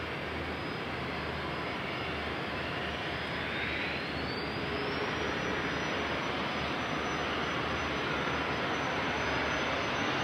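Jet aircraft engines running, with a steady rushing noise that slowly grows louder. A high whine rises in pitch a few seconds in, then holds steady.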